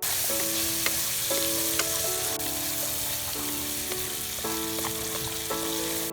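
Food stir-frying in a hot pan: a loud, steady sizzle that starts abruptly, with a few sharp clicks.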